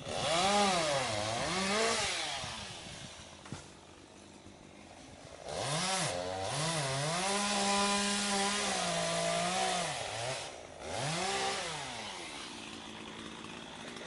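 Chainsaw running at high revs in three spells, a short one, a long one of about five seconds, then another short one, its pitch dipping and recovering as it works through the wood.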